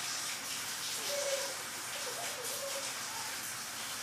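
Bathtub faucet running, a steady hiss of water splashing from the spout into the tub and over small hands held in the stream. A few faint short baby vocal sounds come through in the middle.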